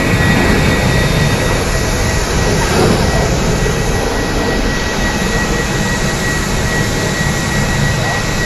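Jet aircraft engine noise, a steady loud rush with a constant high-pitched whine running through it.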